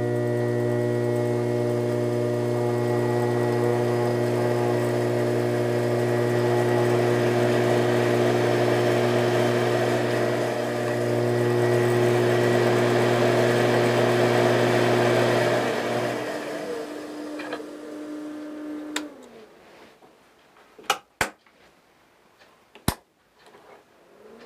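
Treadmill DC motor on a homemade lathe, run through a DC speed controller, running with a steady multi-tone electrical hum. About 16 seconds in, the speed is turned down and the motor winds down to a stop, its pitch falling. A few sharp clicks follow.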